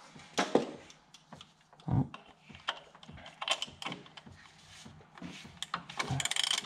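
Hand tools knocking and clicking against the underside of a car as a socket ratchet with an extension is fitted to the oil filter housing. Near the end comes a quick run of ratchet clicks.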